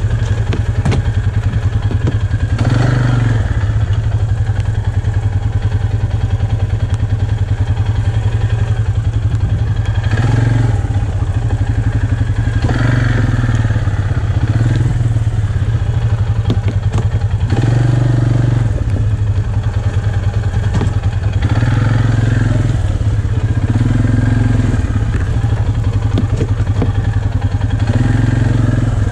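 Polaris ATV engine running at low speed, swelling in short throttle pulls every few seconds, with a few scattered knocks.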